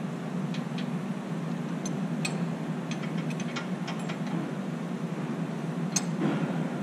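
Open-end wrench clicking against the clamping-pressure adjusting nuts of a box and pan (finger) sheet-metal brake as they are turned. Light, scattered metallic clicks, with a sharper click about six seconds in, over a steady low hum.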